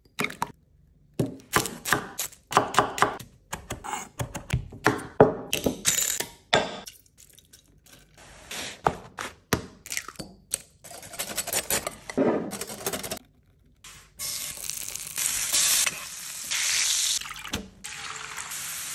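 Kitchen food-prep sounds in quick succession: stirring and tapping in a bowl, short knocks and clinks, and an egg being cracked, then a steady hiss through the last few seconds.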